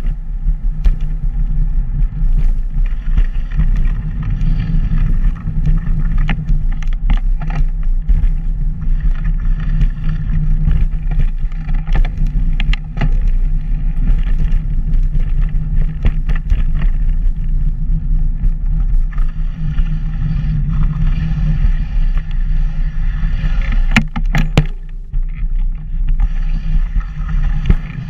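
Wind buffeting the microphone of a camera moving along a paved path: a steady, loud low rumble, with frequent sharp clicks and knocks from bumps and rattles, a cluster of them near the end.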